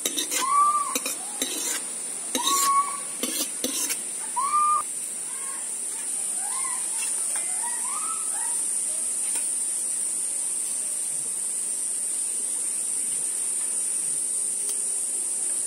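A metal ladle clinks and scrapes against a steel wok and bowl as cooked curry is spooned out, in a cluster of knocks over the first five seconds. A short rising-and-falling call repeats about once a second through the first half, over a steady high hiss.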